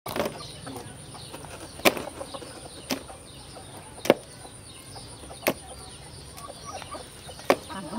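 Fish fillets handled in a plastic basin of water, giving five sharp slaps and knocks about a second or so apart. Birds chirp faintly in the background.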